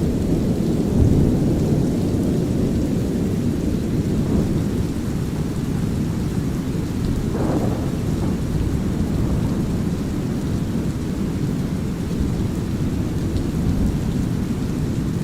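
Thunderstorm soundscape: steady low rolling thunder over brown noise and light rain. It swells louder about a second in, and again briefly about halfway through.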